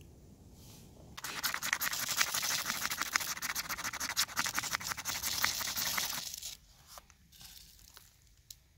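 Ferrocerium rod scraped hard and fast into a pile of wood shavings to throw sparks. It makes a harsh, rasping scrape for about five seconds and stops suddenly, followed by a few faint ticks as the shavings catch.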